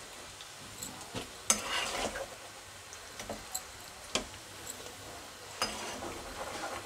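Steel spatula scraping and knocking in a kadhai as fried soya chunks are scooped out of the oil, over a faint sizzle. Sharp clicks come about a second in, near two seconds, around four seconds and at about five and a half seconds, with the longer scrapes after the second and the last of them.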